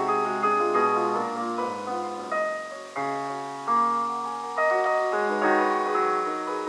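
Grand piano played in a classical style: notes and chords sustain and fade, with fresh chords struck about three and about four seconds in.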